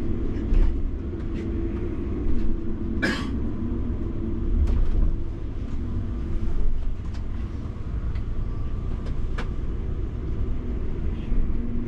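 Tour coach's diesel engine running at low speed as the coach creeps forward while manoeuvring, a steady low rumble with a faint hum, heard from inside the coach. A few light clicks and knocks sit over it, the sharpest about three seconds in.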